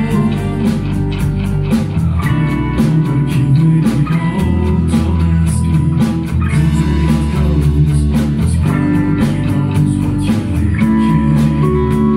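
Progressive rock band playing live without vocals: electric guitars over bass and a steady drum beat.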